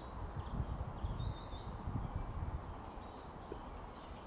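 Small birds chirping in short, high, repeated notes. Irregular low thumps and rumble, strongest in the first couple of seconds, are the loudest sound.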